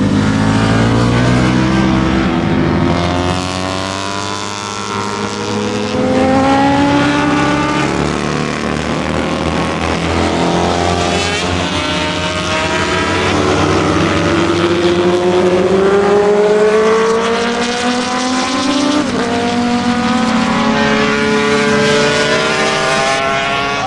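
Racing motorcycles at full throttle going past on the track, one after another, each engine note climbing in pitch and dropping back at each upshift.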